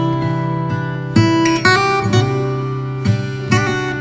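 Background music: an acoustic guitar strumming chords, a new strum every half second to a second.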